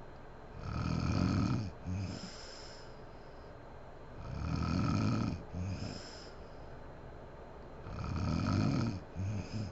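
A woman snoring in deep sleep: three loud snores about three and a half seconds apart, each followed by a shorter, weaker sound.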